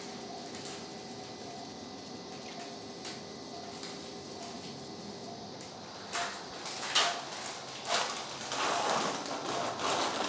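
Electrosurgical unit sounding a steady activation tone for about five seconds while the electrocautery pencil is in use. Then a run of short noisy bursts from the surgical suction tip and the handling of gauze in the wound.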